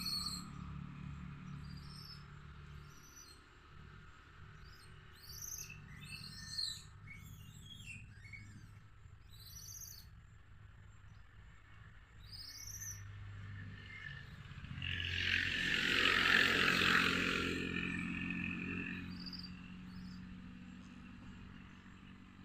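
Birds chirping now and then over a low steady hum, with a broad rushing swell that builds, peaks and fades about two-thirds of the way through.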